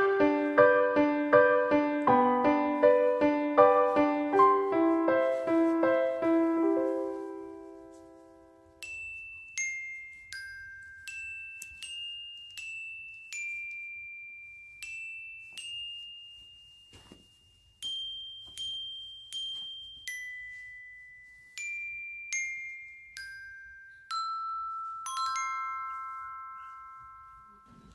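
Background music: a gentle pitched tune that fades out over the first seven or so seconds, then slow single high notes, one at a time, each ringing and dying away.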